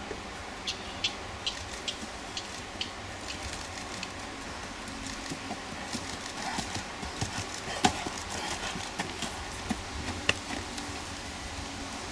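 A horse walking on a gravel and dirt track: a run of evenly spaced hoof steps, about two to three a second, then more irregular steps and clicks, the sharpest near the middle.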